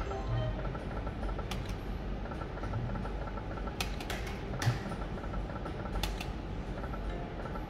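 Video slot machine in play: a steady hum with a faint fast ticking, and several sharp clicks as spins are started and the reels stop.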